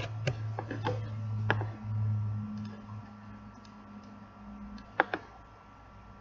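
Sharp clicks from operating a computer: several quick ones in the first second and a half, then a loud pair about five seconds in, over a steady low electrical hum.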